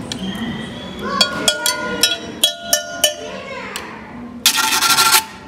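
A quick run of sharp knocks and clinks, several with a short ring, then a brief hissing burst about four and a half seconds in, over voices.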